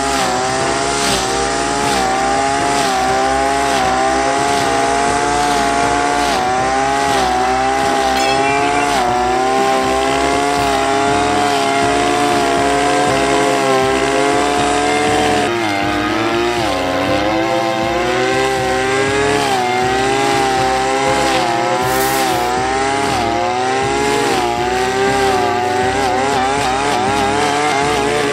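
Engine-driven brush cutter with a shredder blade running at high revs and cutting dense weeds and thick grass stalks. The engine pitch keeps wavering and sags as the blade takes load, most deeply a little past halfway.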